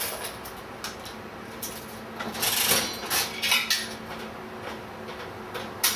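Metal coins clinking and jingling, with scattered sharp clicks and a busy burst of jingling in the middle.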